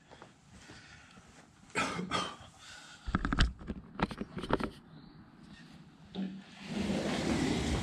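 Close handling noises: a few sharp clicks, then a heavy knock about three and a half seconds in as a cordless drill is set down on the floor, followed by a quick run of clicks. A rustling scrape starts near the end.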